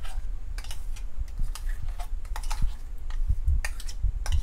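Irregular clicks and knocks of a steel mixer-grinder jar being tapped and handled as thick chutney is emptied out of it into an aluminium bowl, over a low rumble.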